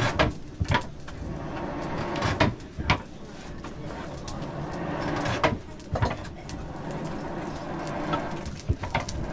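Blacksmith's forge bellows being worked: air whooshing in swells that build over a couple of seconds, each cycle marked by a pair of sharp knocks about half a second apart, roughly every three seconds.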